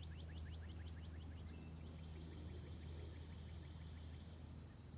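A small bird calling a rapid series of short, repeated chirps, about six a second, fading out about three seconds in. Under it run a steady low hum and a steady high insect drone.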